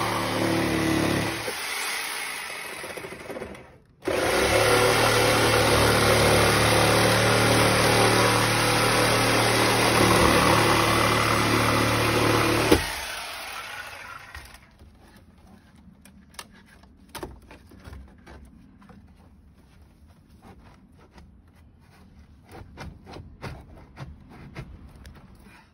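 Corded electric power saw cutting through a wooden wall: it runs at full speed, winds down after about a second, starts up again just before the 4-second mark and cuts steadily for about nine seconds, then is switched off and spins down. Afterwards only faint scattered clicks and taps remain.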